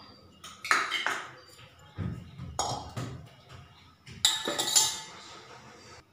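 Steel kitchen utensils clinking and clattering against an aluminium cooking pot in a few bursts, the loudest one near the end with a short ringing tail.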